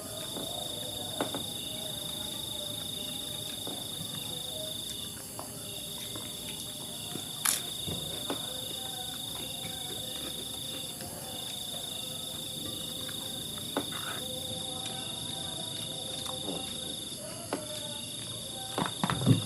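An insect trilling on one steady high note in long stretches of several seconds, broken by short pauses, with a few light clicks now and then.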